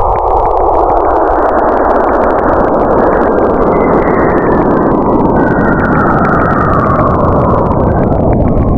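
Sonified space audio of the kind presented as the sound of Saturn or its moons: a loud, steady rushing roar. In the second half a higher hissing band drifts slowly downward across it.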